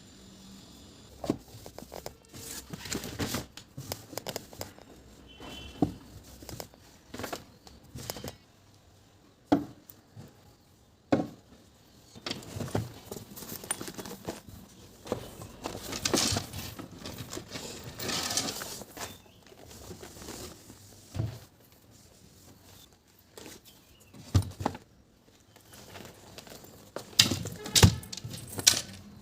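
Irregular knocks, clicks and rustling as household objects are handled and set down while tidying a room, with a few sharper thuds.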